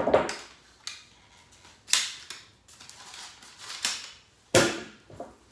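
Handling noise from masking tape and paper being picked up and worked by hand: half a dozen short, sharp rasps and clacks with pauses between them, the loudest a little before the end.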